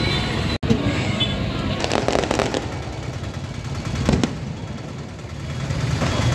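Aerial fireworks going off: sharp bangs about half a second in and again around four seconds, with crackling around two seconds, over a steady background din.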